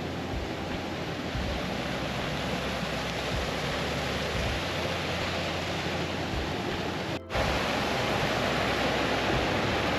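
Rushing water of a moorland stream running full after heavy rain, a steady even rush. It cuts out briefly about seven seconds in, then comes back a little louder.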